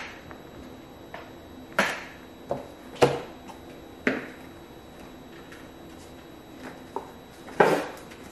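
Handling noises: stacks of paper flashcards set down on a table and taken out of a cardboard box. About half a dozen short knocks and rustles, the loudest near the end.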